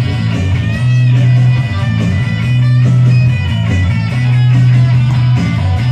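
Rock music playing: guitars over a strong, pulsing bass line.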